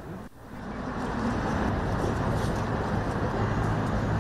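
Steady outdoor background noise with a low rumble, like distant traffic, rising in about half a second in.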